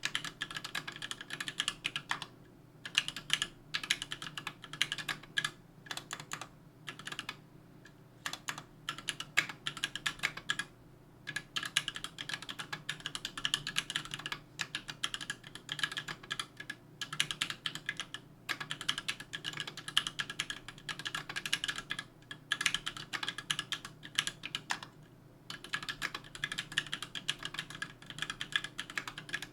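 Continuous fast typing on a KBDfans Tofu 60% aluminum-case mechanical keyboard with JWK H1 78 g linear switches, an aluminum plate and GMK keycaps: rapid keystroke clacks, broken by a few short pauses.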